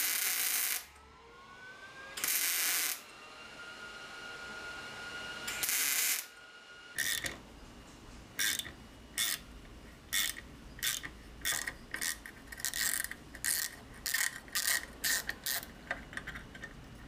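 A mechanical tool worked in short rasping strokes. There are three longer strokes in the first six seconds, then a quicker irregular run of about one to two a second, each with a faint metallic ring.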